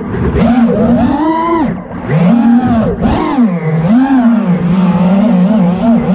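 FPV racing drone's brushless motors whining, the pitch swooping up and down several times as the throttle is worked, then holding steadier near the end.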